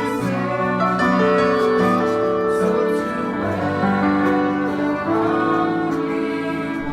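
Slow instrumental music: piano with a bowed violin, playing held notes and chords that change about once a second.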